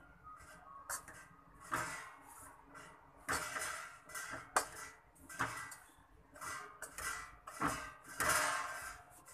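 Steel spoon scraping and stirring besan (gram flour) in ghee around a steel kadhai as the flour is roasted, in repeated uneven strokes about once a second.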